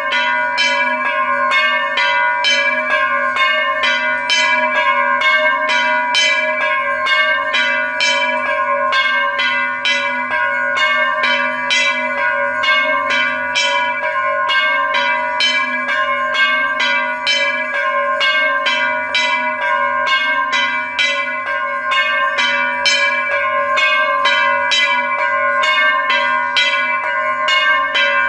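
Temple bells ringing without pause, struck about two or three times a second, several ringing tones overlapping as each strike sustains into the next.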